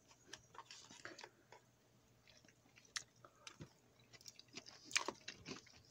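Faint close-up chewing of crunchy food, MRE potatoes au gratin with a broken cracker stirred in: small crunches and mouth clicks scattered through, with a sharper one about five seconds in.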